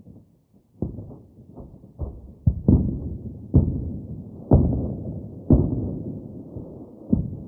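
Distant war explosions: a run of muffled, low booms, each dying away slowly. They begin about a second in and come irregularly, the heaviest about two and a half, three and a half, four and a half and five and a half seconds in.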